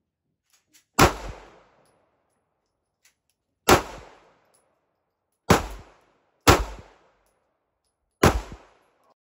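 Taurus G3c 9mm pistol firing five single shots at uneven intervals, each report followed by a short echoing tail.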